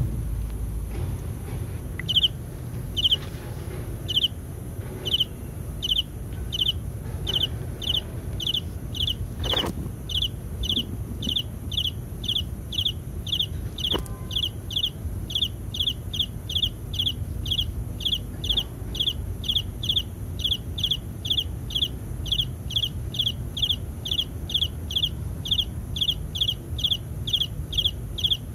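A short, high chirping call repeated over and over from an unseen animal. It comes about once a second at first, then quickens to a steady two to three a second, over a steady high hiss.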